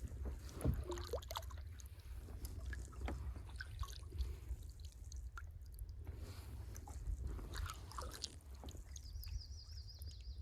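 Small knocks, scrapes and water drips from a canoe and fishing gear being handled, over a steady low rumble. A brief high trill comes in near the end.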